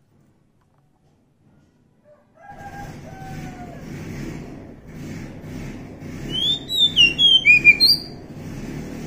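Oriental magpie-robin singing a short, loud run of quick rising and falling whistled notes over a steady background hiss. The sound cuts in about two and a half seconds in, with a couple of lower whistled notes before the song.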